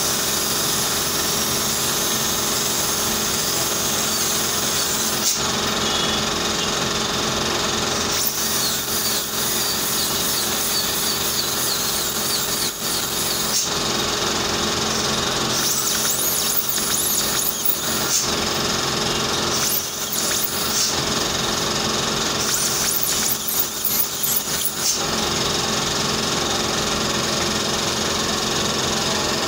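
Dental drill (handpiece) running with a high whine that wavers in pitch and drops out and resumes several times, over a steady mechanical hum.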